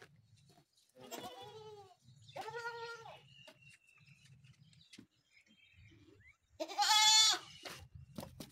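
Makhi Cheeni goat kids bleating: three separate bleats, the third the loudest.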